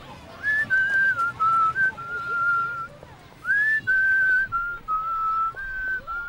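A person whistling a slow tune: single clear notes, some held for about a second, stepping up and down, with a slide up to a higher note midway.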